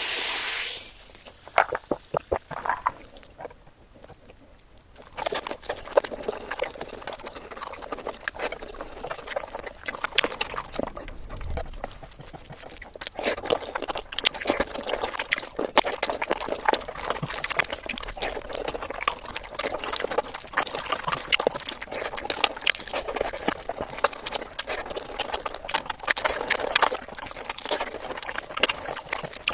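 Close-up wet chewing and lip-smacking while eating chicken biryani: dense, irregular clicks and crackles that thin out briefly a few seconds in, then carry on steadily.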